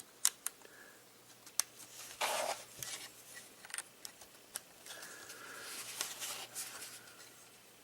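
Plastic Transformers action figure being handled: a scattering of small sharp clicks with short stretches of scraping and rustling between them, as parts are moved and set in place.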